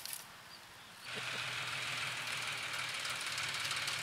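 An engine running steadily in the background, a low rhythmic drone with a hiss over it, setting in about a second in.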